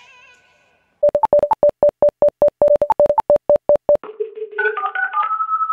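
Electronic telephone-style beeps. A rapid run of short beeps at one pitch, with a few higher ones mixed in, lasts about three seconds. Then comes a string of steady tones stepping up and down in pitch.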